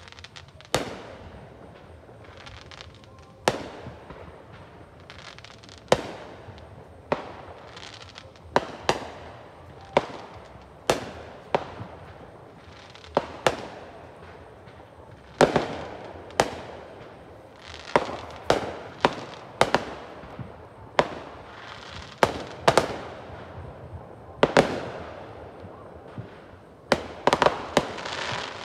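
Distant aerial fireworks shells bursting, a sharp bang about once a second, each trailing off in an echo. There is a quick flurry of several bangs near the end.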